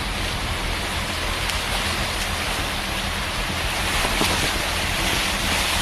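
Strong wind buffeting the microphone over a running boat motor's low hum and the wash of choppy water, a steady noise with no distinct events.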